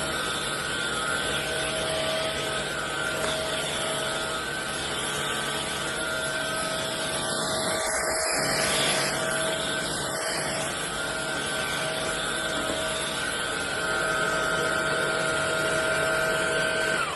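Dyson cordless stick vacuum running steadily with a floor brush head, its motor holding a constant whine over a rush of airflow, then switched off at the very end.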